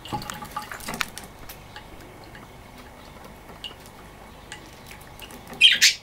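Budgerigar bathing in a small cup of water, splashing as it dips its head in and ruffles its feathers. Scattered splashes over the first second, small drips and clicks after, then one short, loud splash just before the end.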